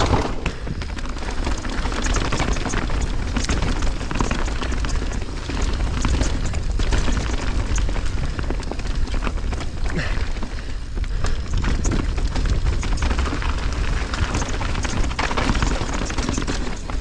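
Mountain bike riding down a rough, rocky trail: heavy wind rumble on the camera microphone, with frequent clicks and knocks from the tyres, chain and frame jolting over rocks and roots.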